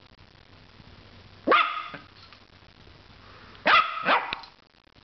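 Yorkshire terrier barking three times: a single bark about one and a half seconds in, then two quick barks close together near the end.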